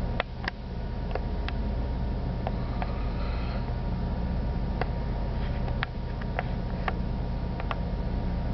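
Steady low drone of shipboard or platform machinery, with several low hums and a thin whine, broken by scattered sharp clicks.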